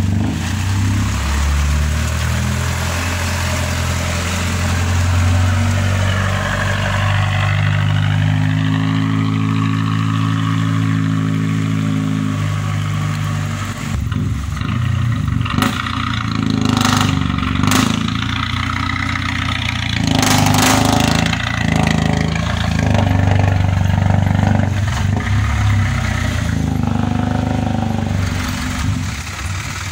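Vehicle engine working along a slippery muddy track. It holds one pitch for a few seconds, then rises and falls as the throttle changes, with several knocks or clatters about halfway through.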